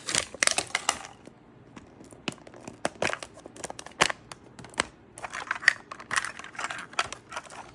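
Plastic wrapping from a Mini Brands toy capsule crinkling and tearing as it is unwrapped by hand, in dense crackly stretches near the start and again in the second half, with single sharp crackles between.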